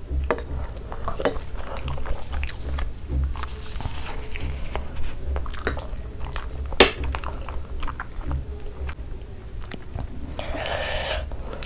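Close-miked chewing and slurping of masala Maggi instant noodles, wet mouth sounds, with a fork clicking against the plate. One sharp click comes about seven seconds in.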